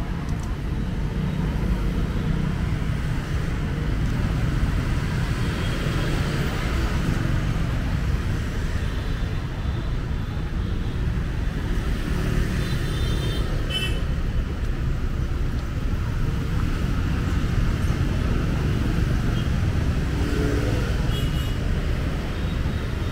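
Steady city street traffic: cars and motorbikes passing on the road, a continuous low rumble.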